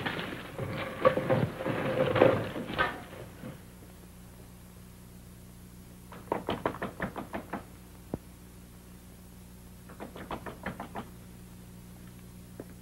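Rapid knocking on a wooden door in two bouts of several quick raps each, the second a few seconds after the first. It comes after a few seconds of busy mixed noise at the start.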